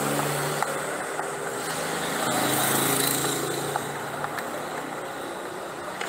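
Motor vehicle engine running with a low steady hum, swelling louder about two to three seconds in as if passing, with a few faint clicks.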